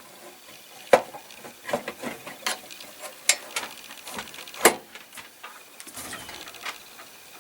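Irregular light clicks and knocks of hard objects being handled, about a dozen spread over several seconds with no steady sound between them.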